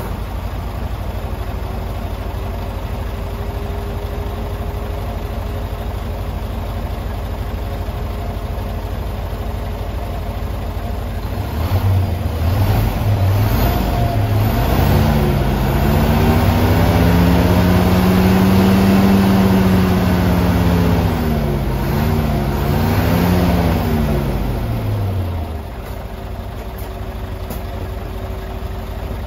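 Mitsubishi Fuso Aero Star S bus's diesel engine, freshly started, idling steadily with a faint whine over it. About twelve seconds in it is revved up and held high for several seconds, dips and rises once more, then drops back to idle.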